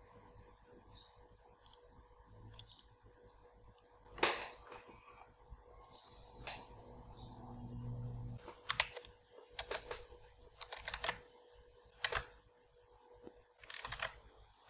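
Scattered clicks and taps of a computer keyboard and mouse, irregular and faint, with a sharper click about four seconds in.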